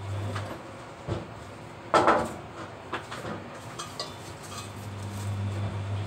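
Kitchen things clattering as they are handled on a worktop, with one loud clatter about two seconds in and lighter clicks and knocks before and after it. A low steady hum in the background stops just after the start and comes back near the end.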